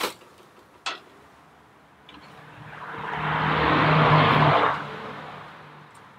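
A vehicle passing by: a rising and then fading rush of engine and road noise lasting about three seconds, with a steady low hum under it. Two short clicks come first, at the start and about a second in.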